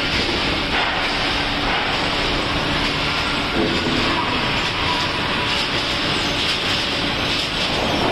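Steady, loud mechanical din of a steel rolling mill's cooling bed and roller table running as hot steel bars are moved across the bed, with a faint steady hum under it.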